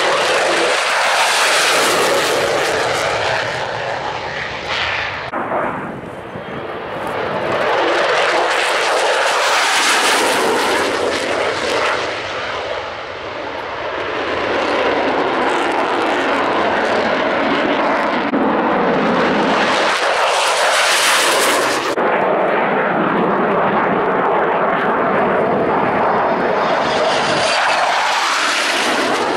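F-16 fighter jet's engine at high power during takeoff and climb: a loud rushing jet noise that swells and fades as the aircraft passes, changing abruptly twice.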